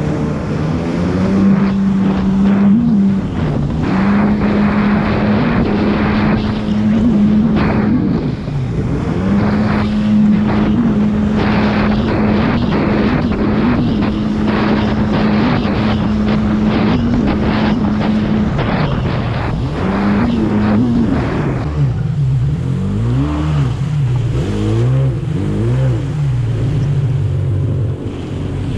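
Jet ski engine running at a steady high pitch at speed, with water splashing and slapping against the hull over the chop. From about 22 seconds in the throttle is eased off and on, the engine note dipping and rising repeatedly as the craft slows.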